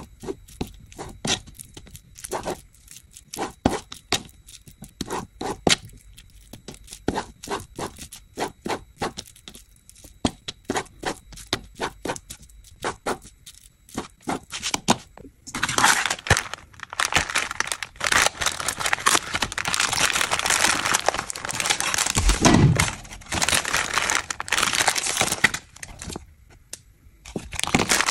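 A kitchen knife slicing raw chicken on a plastic cutting mat: a string of short knocks, one or two a second, as the blade meets the board. About halfway through, loud continuous crinkling and rustling of plastic food packaging takes over, with one dull thump in the middle of it.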